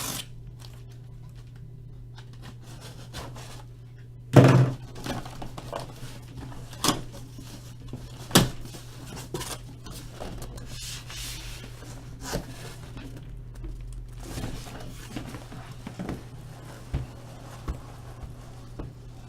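Cardboard case of trading-card boxes being opened and unpacked by hand: a loud thunk about four seconds in, then scattered knocks and rustling of cardboard as the boxes are handled, over a steady low hum.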